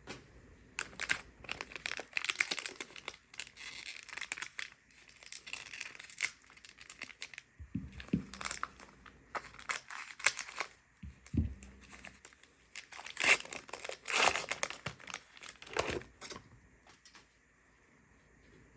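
A 2023 Panini Prizm football fat pack being torn open and its wrapper crinkled by hand: a dense run of crackling that stops a couple of seconds before the end, with two dull knocks in the middle.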